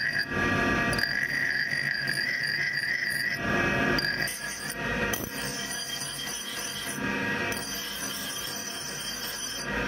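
Motor-driven grinding wheel running with a steady high whine as a steel axe head is ground against it. The strongest high tone fades about three and a half seconds in.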